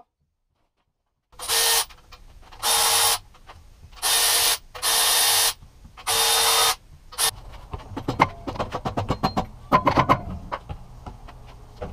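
Air ratchet run in about five short bursts, each a loud hiss with a steady whine, while fasteners come off a Toyota 1UZ-FE V8's cylinder head. After that comes a quick run of sharp clicks and metal knocks from tools and parts being handled.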